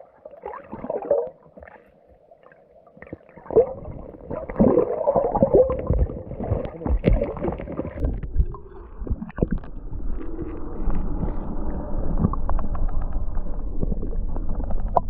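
Water sloshing and splashing as a person wades through a shallow stream, with scattered sharp knocks. It is quiet for the first few seconds, then the splashing starts, and a steady low rumble joins it after about eight seconds.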